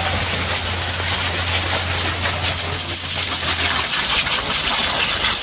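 Water spraying from a small wildland fire hose nozzle onto smouldering forest floor: a steady, loud hiss of spray, with a low hum underneath that stops about two-thirds of the way through.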